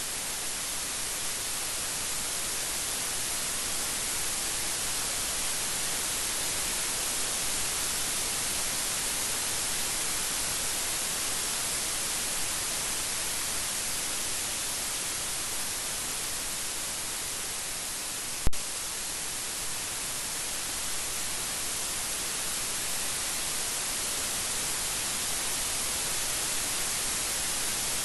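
Steady rain, an even hiss with no thunder, broken once by a single sharp click about two-thirds of the way through.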